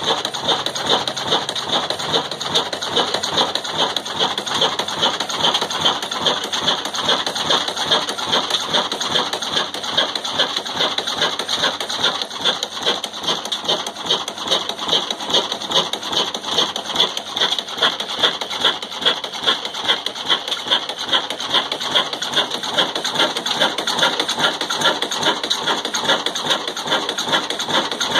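Shareef-built slow-speed 'black' diesel engine of the Ruston Hornsby type, rated 18 horsepower at 250 rpm, running steadily with an even, repeating beat and a dense mechanical clatter.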